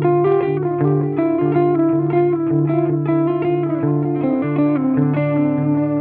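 Mensinger Birdy, a Firebird-style electric guitar, played through an amplifier: a run of picked notes over a low note repeating about twice a second.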